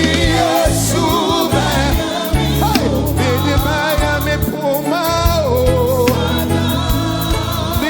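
Gospel praise music performed live: singing with choir voices over a band with a stepping bass line and drums.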